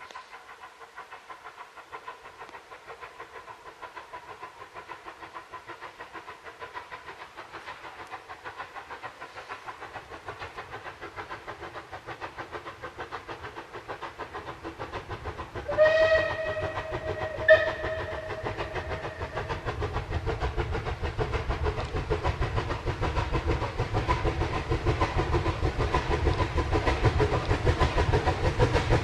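Steam train approaching, its rumble growing steadily louder, with two short blasts on the locomotive's steam whistle about halfway through.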